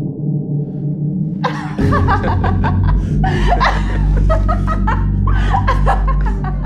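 A low, steady droning score, then about a second and a half in a woman breaks into high, gliding laughter and giggles over a deep low drone.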